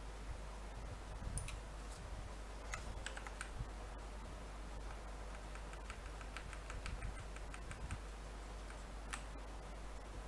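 Computer keyboard and mouse clicks tapping now and then, with a run of quick light clicks in the middle, over a steady low hum and hiss.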